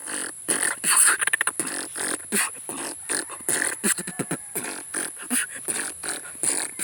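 Beatboxing: a solo vocal percussionist makes rapid mouth clicks, snares and hissed hi-hats in a fast rhythm, with short pitched bass and vocal sounds between them. About a second in there is a quick rolling burst of strokes.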